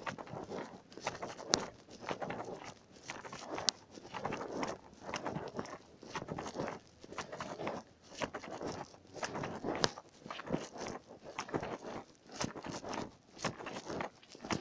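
Footsteps walking on an icy, slushy pavement, about two steps a second, with a couple of sharp ticks in the first few seconds.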